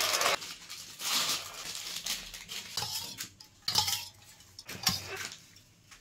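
Handling noises in short bursts: a plastic bag crinkling and a spoon clinking against a steel bowl.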